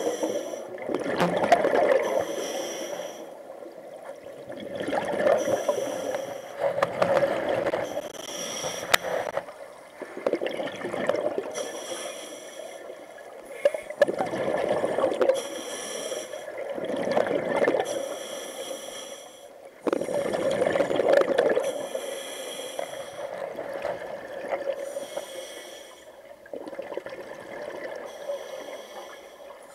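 Scuba diver breathing through a regulator underwater. A hissing inhale alternates with a louder gurgling rush of exhaled bubbles, repeating in a slow, regular cycle every few seconds.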